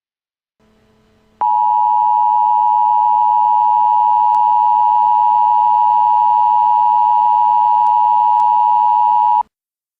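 Emergency Alert System attention signal: a loud, steady two-tone beep, two close pitches sounding together, that starts about a second and a half in, is held for about eight seconds and cuts off abruptly. It signals that an emergency alert message is about to be read.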